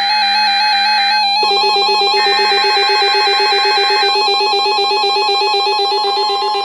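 Synthesizer keyboard music with quick trilling notes held over steady tones.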